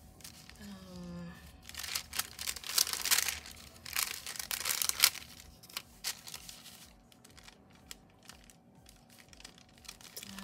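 A thin translucent paper sheet crinkling as it is handled and lifted off a planner page, loudest for a few seconds after the start, then lighter paper rustles as stickers are pressed down.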